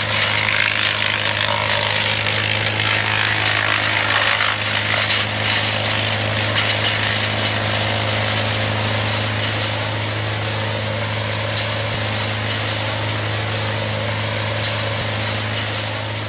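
Morbark Beever M8D brush chipper running steadily while its disc chips leafy brush and blows the chips out of the discharge chute. The chipping noise is heaviest in the first few seconds and then settles to an even hum from the machine.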